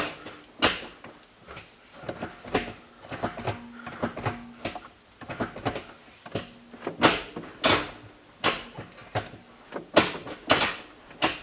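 A car's manual gear lever being worked back and forth through the gears, a string of irregular clicks and clunks as it drops into each gate.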